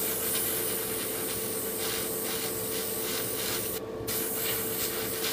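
Spraycraft gravity-feed airbrush hissing as it sprays a light mist coat of flat white paint. The hiss cuts out briefly about four seconds in, when the trigger is let go, then resumes. A steady low hum runs underneath.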